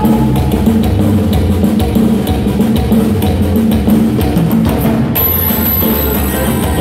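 Live band with keyboard, electric bass, drum kit and accordion playing an instrumental break, with no singing: bass and percussion carry a steady, even dance beat.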